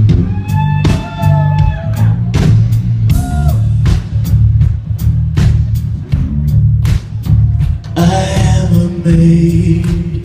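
Live band playing an instrumental passage of a rock song: a steady drum-kit beat over bass and guitar, with a gliding melody line above and a sustained pitched line coming in near the end.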